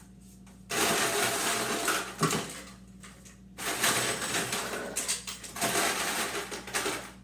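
Ice being dispensed into a cup, most likely from a refrigerator door ice dispenser, in two long runs of ice and motor noise. The first run starts under a second in and the second about halfway through.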